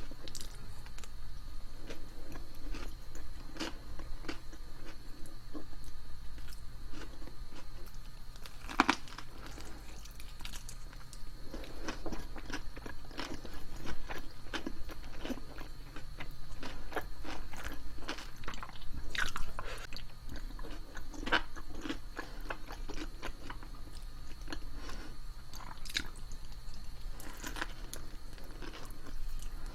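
Close-miked eating: irregular bites, crunches and chewing, one after another, over a faint steady high whine.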